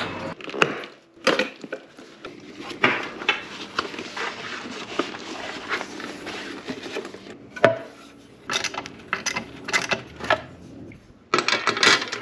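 Handling noise from motorcycle parts: a leather side bag and a black metal side panel are shifted and set down on a wooden desk, with rustling, clicks and knocks. One sharp knock a bit past halfway, and a burst of rustling near the end.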